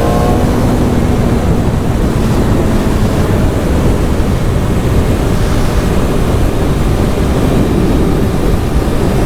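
Steady wind roar buffeting a helmet microphone on a motorcycle ridden at around 60 mph, covering the engine almost completely. A faint engine note shows under it only in the first moments.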